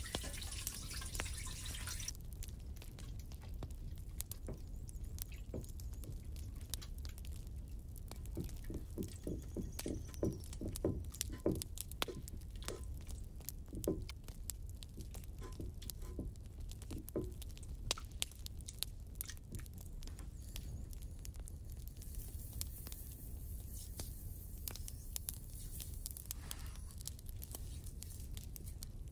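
Small kitchen handling sounds: soft wet squishes and drips with scattered light clicks, and a run of quick taps about a third of the way in, at roughly four a second, over a steady low hum.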